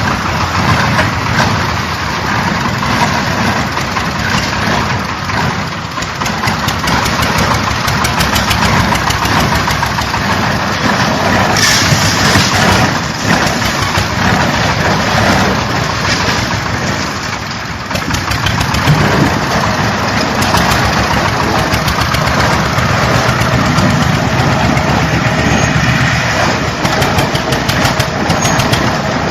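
JZC350 concrete mixer running, a loud steady mechanical drone with a dense, rapid rattle.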